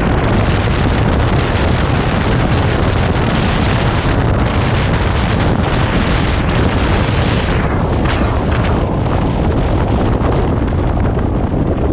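Heavy, steady wind buffeting on the microphone of a camera on a moving motorcycle, with the motorcycle's road noise underneath.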